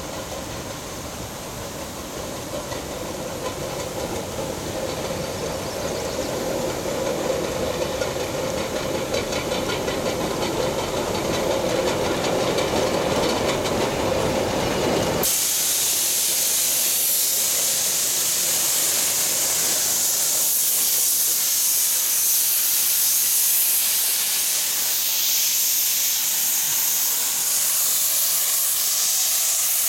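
Shay geared steam locomotive working along the track, its running sound growing louder over the first half. About halfway through it gives way abruptly to loud, high-pitched hissing of escaping steam.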